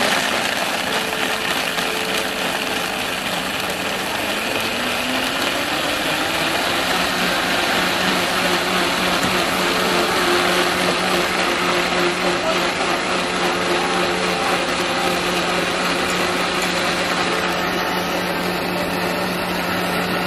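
Commercial countertop blender running at high speed, blending Thai iced tea. Its motor pitch climbs a few seconds in, then holds steady.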